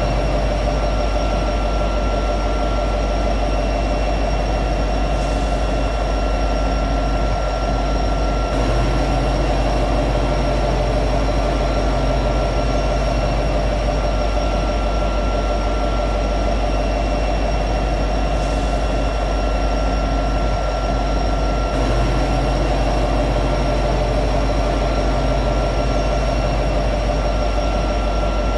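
EMD SD70ACe diesel-electric locomotive's V16 two-stroke diesel running steadily at high idle, a deep rumble under several steady tones, with small shifts in tone about eight and twenty-two seconds in.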